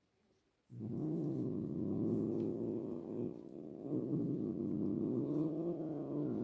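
Domestic cat making a long, low, drawn-out vocal sound that starts just under a second in. Its pitch wavers, with a brief dip about halfway through before it carries on.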